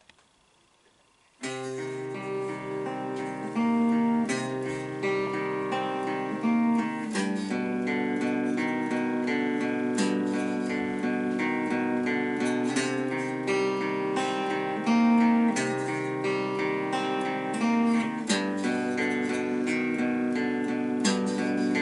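Hollow-body electric guitar playing a picked, strummed chord intro, starting about a second and a half in after a brief silence.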